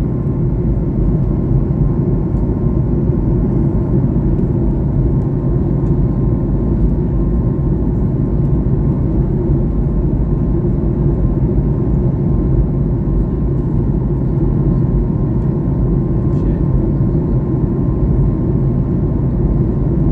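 Aircraft cabin noise: a steady low drone of engines and rushing air, with a faint steady tone above it.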